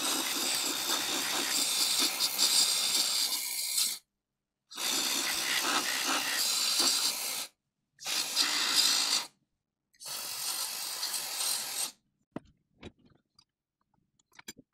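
WD-40 aerosol spraying in four hissing bursts, the first and longest about four seconds, sprayed into a reciprocating saw's stuck quick-release blade clamp to loosen it. A few faint clicks follow near the end.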